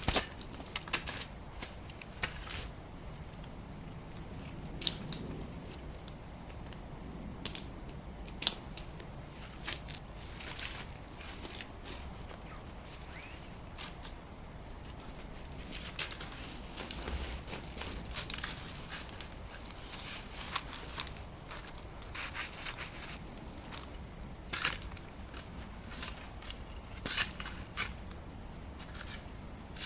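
Touring skis crunching over snow, with irregular crisp crunches and sharp clicks.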